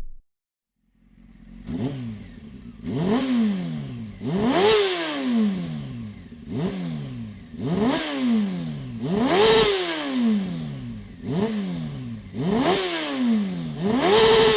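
Honda CBR 600 F3's inline-four engine through an aftermarket Dominator muffler, revved in quick throttle blips. Each blip rises sharply in pitch and falls back to idle, about nine times, after the engine fades in about a second in.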